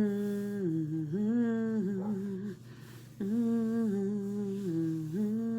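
A woman humming a slow tune with long held notes that step up and down, in two phrases with a short break about two and a half seconds in.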